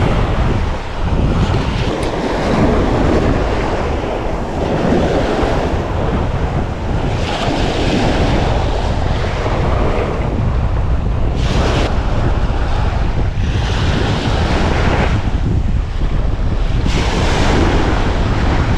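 Ocean surf breaking and washing up a sandy beach, its hiss swelling every few seconds, under a heavy rumble of wind buffeting the microphone.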